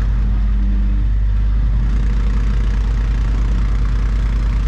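Selwood dewatering pump's engine running steadily, a constant drone with a strong low end, as it draws water out of the drained lock chamber through its suction hose.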